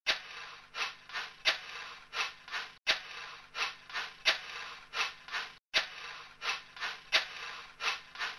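A hand screwdriver working a screw on a folding bicycle's rear mudguard: short scraping clicks about every 0.7 s, with two brief breaks.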